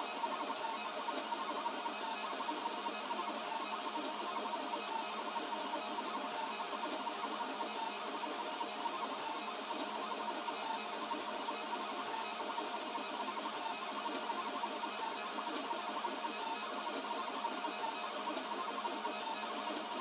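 3D printer running a print: a steady whir of stepper motors with a faint whine.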